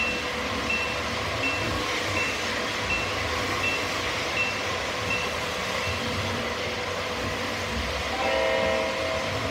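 O scale model train running past, with a steady rumble and hum of wheels and motors on the track. A crossing-signal bell dings about once every three-quarters of a second until a little past the middle. A short horn blast sounds near the end.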